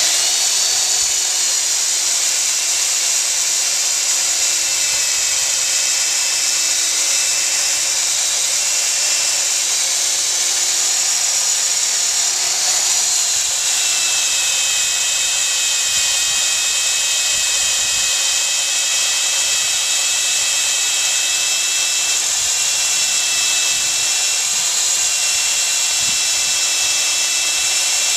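Corded electric drill running steadily, its bit boring into the top of a 55-gallon plastic barrel. The motor's pitch dips briefly a few times as the bit bites.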